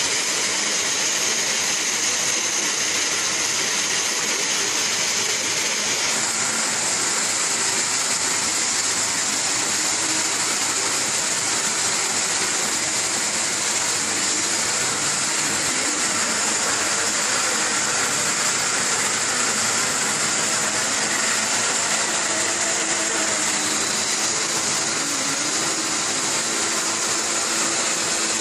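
Light dump truck's engine running hard at steady high revs as it tries to pull out of the mud, its rear wheels spinning in the slop: a loud, unbroken mechanical drone.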